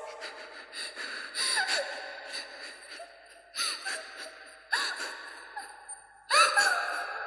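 A child's short gasping, sobbing cries, a few separate breaths that bend in pitch, over soft, echoing film music.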